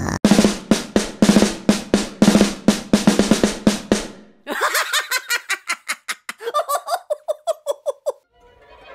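Drums played fast: a dense run of hits for about four seconds, then, after a brief gap, a quicker run of higher-pitched strikes that stops shortly before the end.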